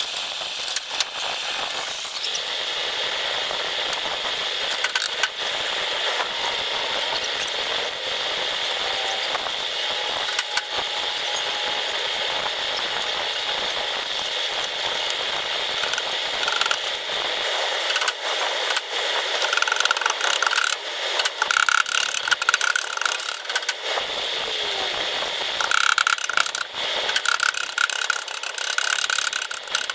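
Paintless dent repair tools working a car's sheet-metal fender: scattered clicks and knocks over a steady hiss, with a run of short, repeated squeaks in the second half as the metal is worked.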